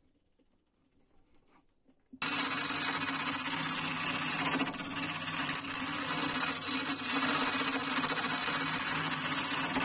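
Boston MC 1018 wood lathe running while a turning chisel cuts a spinning sweet chestnut spindle, a steady dense scraping-cutting noise over the motor's hum. It starts abruptly about two seconds in, after a few faint clicks.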